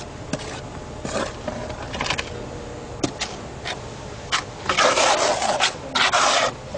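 Rough scraping and rubbing of a tool on a hard surface: a few short strokes, then two longer, louder scrapes about five and six seconds in.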